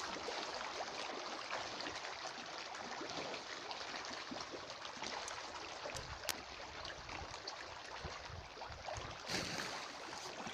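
Steady splashing and trickling of water, with a few small clicks.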